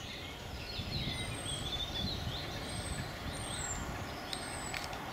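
Small birds singing and calling, with a thin, high, slightly falling whistle repeated about four times, over a steady low rumble of wind on the microphone.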